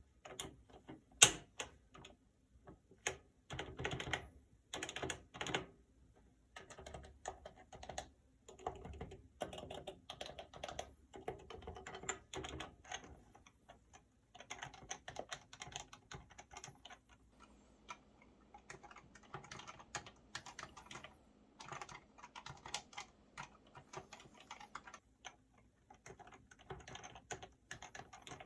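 Typing on an HHKB Professional2 keyboard with stock Topre electrostatic capacitive switches: runs of rapid keystrokes broken by short pauses, with one sharper, louder clack about a second in.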